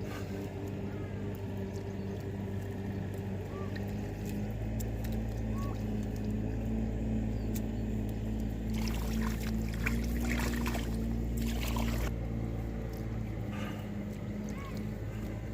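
A small engine running steadily. A stretch of rushing, splashing noise comes from about nine to twelve seconds in, and a few short bird chirps are heard.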